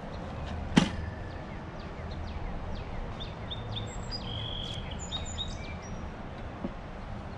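A sharp knock about a second in, then a songbird singing a run of short high chirps and a brief held whistle, over a steady low hum.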